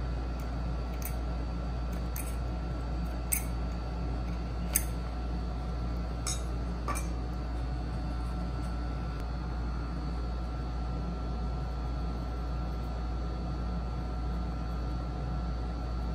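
Six light clicks and clinks from hand tools being handled at a woodworking bench, spread over the first seven seconds, two of them louder. A steady low hum runs underneath.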